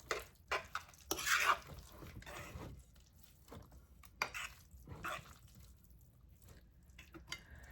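Wet, squishing food-handling sounds from a bowl of sauced instant noodles: a string of short, irregular squishes, with a sharp click about four seconds in.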